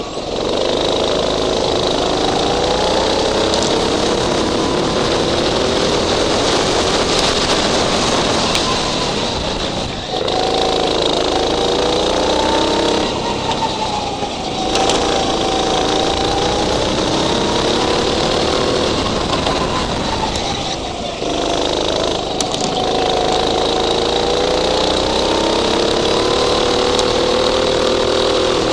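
Go-kart engine heard from the driver's seat, revs climbing and falling away lap after lap as the kart speeds up on the straights and slows for corners, with sharp drops about ten and twenty seconds in. A steady rush of wind and road noise runs underneath.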